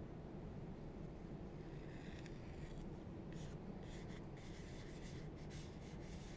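Masking tape being handled and pressed onto a plastic model kit's fuselage: faint scratchy rustles and short crackles, coming more often from about two seconds in, over a steady low hum.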